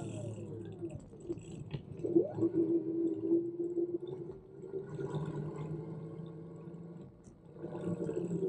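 Brompton Electric's front hub motor whining steadily under the rider, its pitch sliding up and down with speed, with a few light clicks from the bike.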